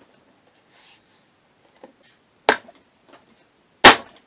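Two sharp clicks about a second and a half apart, the second louder, as the side cover panel of a Veteran Sherman S electric unicycle is pressed down by hand and fitted into place. A faint rustle of handling comes about a second in.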